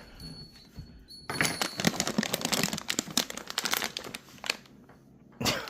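Dog treat bag crinkling as it is handled and opened. It starts about a second in as a dense rustle, fades out after a few seconds, and gives one more short crinkle near the end.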